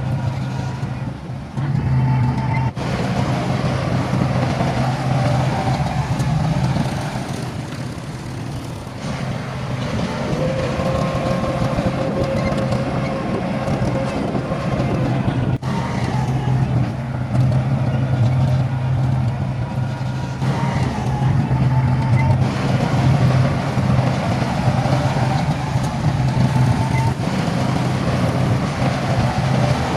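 Heavy diesel engines of construction machinery (bulldozer and dump trucks) running steadily, with a faint whine on top that wavers in pitch. The sound changes abruptly twice, about 3 and 16 seconds in.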